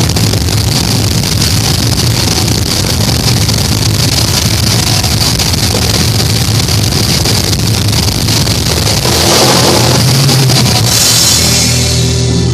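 Metal band playing loud and dense: distorted guitars over a drum kit with constant cymbal wash. The high cymbal wash drops away near the end.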